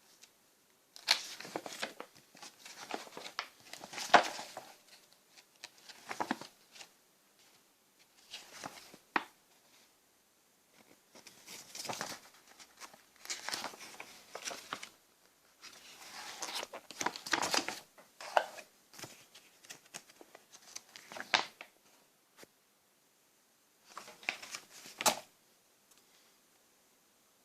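Irregular bursts of rustling and crinkling handling noise, with a few sharp clicks, separated by short quiet gaps.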